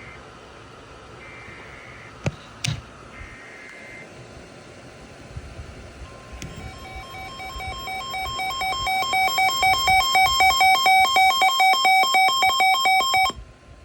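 Emergency Alert System tones from NOAA Weather Radio for a severe thunderstorm warning. It opens with short bursts of warbling SAME data tones and two sharp clicks a little over two seconds in. From about halfway a steady warning alarm tone starts, joined by a loud electronic beep pulsing about three times a second, which cuts off just before the end.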